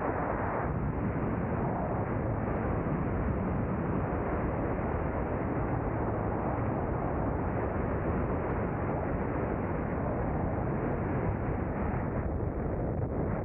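Steady rushing wind noise buffeting an action camera's microphone in an open glider, with a low rumble under it.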